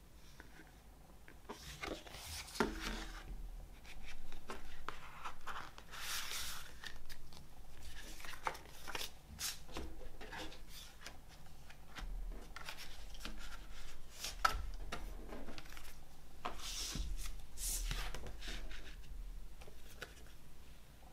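Hands handling a fold-out cardboard CD digipak, with card panels rubbing, tapping and folding and the package sliding on a wooden tabletop. It comes as an irregular run of small clicks and short rustles and scrapes, starting a second or two in and dying away near the end.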